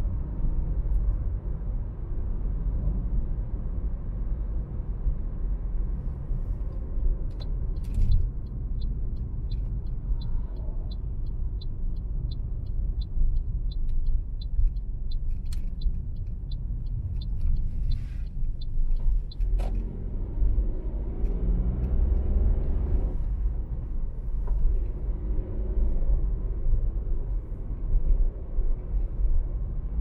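Car driving on the road: steady low engine and tyre rumble. A light regular ticking, about three ticks a second, runs for about ten seconds in the middle, and a rising hum comes in about two-thirds of the way through.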